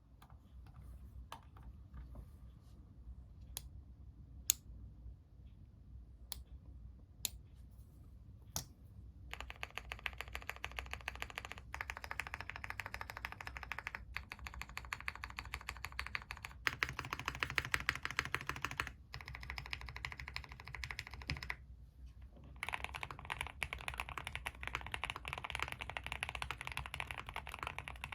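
Custom Suit80 mechanical keyboard with Tealios V2 linear switches in Cherry top housings, on an aluminium plate with GMK keycaps: single keys pressed one at a time for about the first nine seconds, then fast continuous typing, broken by a short pause a little past twenty seconds.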